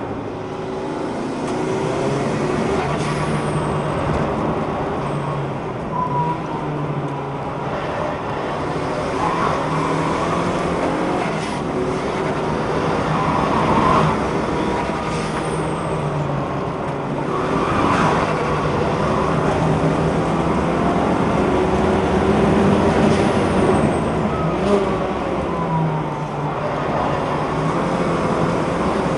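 Race car engine heard from inside the car on a circuit lap, revving up and down through the gears, with a few short knocks along the way.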